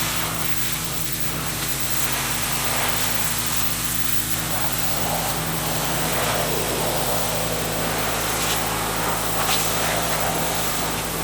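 Pressure washer running steadily: a constant motor hum under the hiss of the water jet spraying the car's body.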